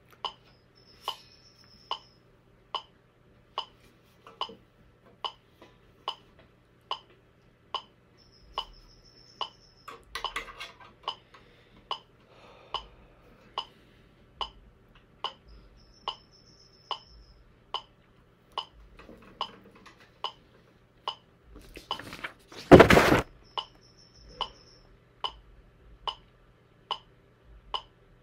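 Metronome clicking steadily at about 72 beats a minute. About two-thirds of the way in there is a single loud, short noisy sound, such as a cough or a rush of breath, with soft handling noise now and then.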